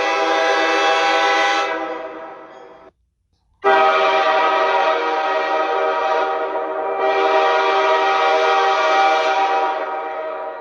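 Train horn: a long blast that tails off and ends about three seconds in, then after a short silence a second long blast that starts abruptly and holds steady, with its upper tones thinning briefly near the middle.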